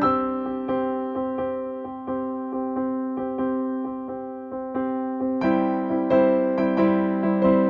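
Background music: a gentle piano or electric piano tune with evenly repeated notes, growing fuller about five and a half seconds in.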